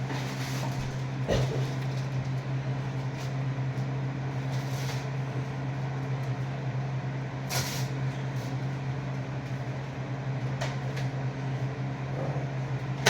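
A few short, sharp clicks and knocks from a foam-dart Nerf blaster being fired, the strongest about a second in and another near the middle, over a steady low hum.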